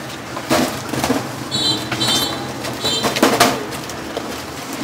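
Baguettes being shuffled and knocked about in a stainless-steel bread tray, giving a few sharp knocks, the loudest about three seconds in. A bird chirps three times, short and high, in the middle.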